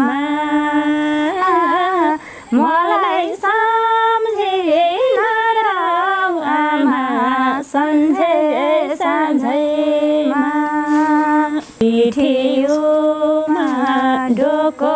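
Two women singing a Nepali song together, unaccompanied, in long held and bending notes, with short breaks for breath about two seconds in and near twelve seconds.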